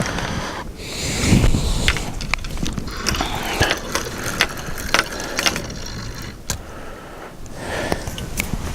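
Fishing reel being cranked: a mechanical ratcheting whir with irregular clicks.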